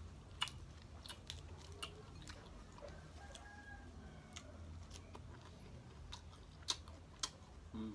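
Close-up chewing of boiled chicken, with wet mouth clicks and small crunches at irregular intervals. A few sharper clicks stand out, about half a second in and twice near the end.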